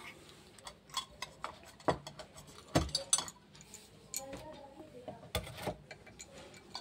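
Stainless steel utensils (a lid, small bowls and a plate) knocking and clinking as they are handled and set down on a wooden table: a handful of separate taps and clinks.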